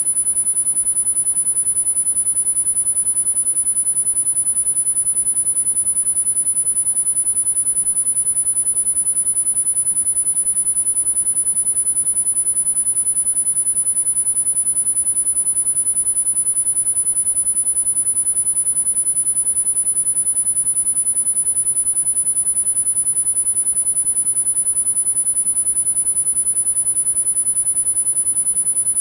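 A single very high-pitched electronic sine tone, held perfectly steady: a tinnitus masking tone for sound therapy.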